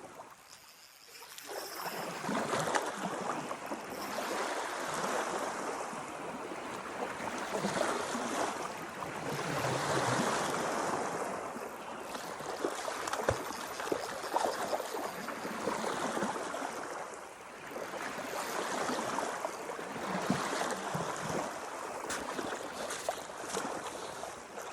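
Lake water lapping and sloshing against the hull of a small boat, swelling and easing every few seconds, with scattered small knocks.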